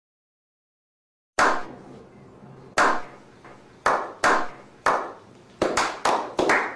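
A slow clap: single hand claps from a small group, starting about a second and a half in, widely spaced at first and then coming faster and faster, each with a short echo.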